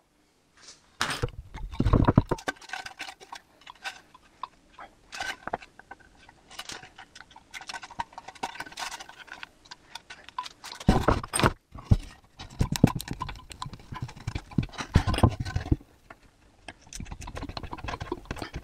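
Small metal screw hooks clinking and a wooden board knocking and scraping on a wooden workbench as the hooks are handled and screwed in by hand: a run of irregular clicks and knocks, busier about a second in and again past the middle.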